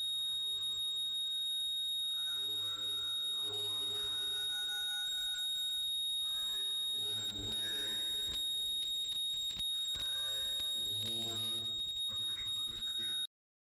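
A steady high-pitched electronic whine over faint, muffled low tones. It cuts off suddenly near the end.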